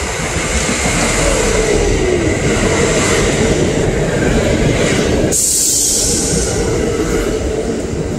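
R46 subway train arriving at the platform, its cars rolling past close by with a loud, steady rumble and rattle. A whine falls in pitch about a second in, and there is a short sharp hiss about five seconds in.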